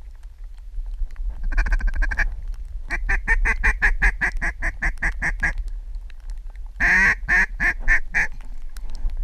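Duck quacking in three quick runs: a short burst, then a long string of about a dozen quacks, then about five more, each run rapid and evenly spaced. A low wind rumble on the microphone runs underneath.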